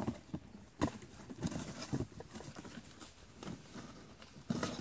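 Irregular knocks, taps and rustling of plastic items and cardboard as things are lifted out of a cardboard box, with a sharp knock about a second in and a louder clatter near the end.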